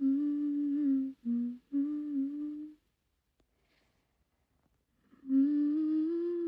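A woman humming a slow melody in long held notes that step up and down. The humming stops for about two seconds in the middle, then starts again.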